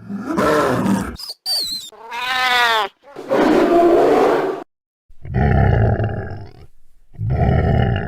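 A string of designed dragon-roar sound effects: a growl, a short high wavering screech, a pitched cry that rises and falls, then three deep roars, each separated by a brief gap.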